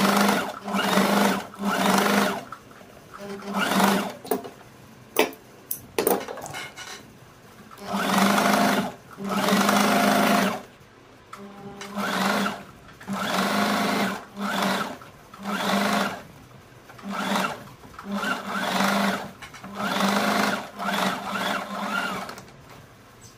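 Singer 8280 sewing machine stitching a rolled hem in short bursts, mostly half a second to a second long, the motor starting and stopping as the fabric is guided through. About four seconds in it pauses for a few seconds, with a couple of sharp clicks, then the bursts resume.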